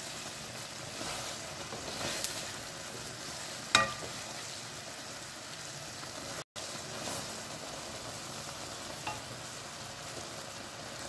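Carrots simmering in a reduced milk-and-sugar syrup in a pan, a steady bubbling sizzle, while a wooden spoon stirs them. A sharp knock of the spoon against the pan comes about four seconds in.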